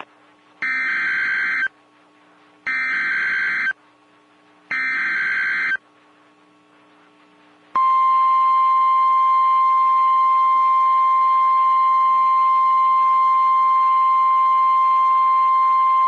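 NOAA Weather Radio Emergency Alert System header: three one-second bursts of screechy SAME digital data about two seconds apart. From about eight seconds in comes the single steady high-pitched warning alarm tone that announces a warning, here a severe thunderstorm warning.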